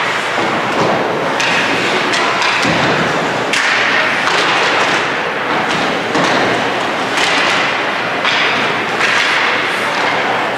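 Ice hockey play: skates scraping on the ice in repeated hissy strokes, with thuds.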